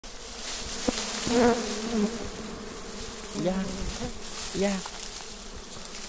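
Honey bees buzzing steadily as a swarm. Individual bees fly close by three times, about 1.5, 3.5 and 4.7 seconds in, and their buzz swells and bends in pitch as they pass.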